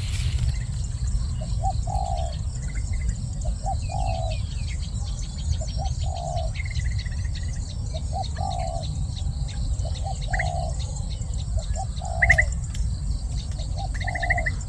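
Spotted dove cooing over and over, each phrase two short notes followed by a longer coo, about every two seconds. Other small birds chirp higher up, over a steady low rumble.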